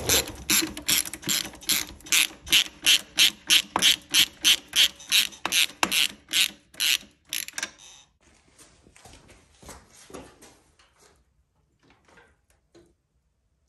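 Half-inch socket ratchet clicking in quick, even strokes, about three a second, while it turns the rear-axle belt adjusters to tighten the drive belt. The strokes grow fainter and sparser after about seven seconds and stop about eleven seconds in.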